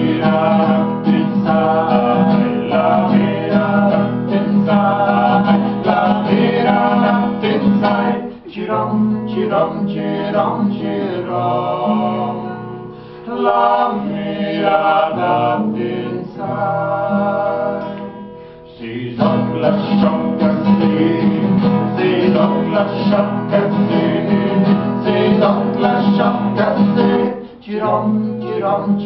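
Two men singing a song together to a strummed acoustic guitar, with a few brief pauses between phrases.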